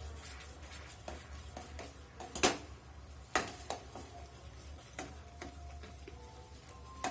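A spoon stirring ginger and honey sugar syrup boiled to the soft-ball stage in a pan, with a few sharp knocks of the spoon against the pan over a low steady hum.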